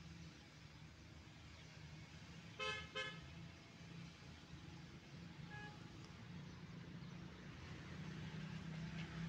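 A vehicle horn gives a quick double toot a little under three seconds in, over a faint steady hum of distant traffic. A fainter short tone follows a few seconds later.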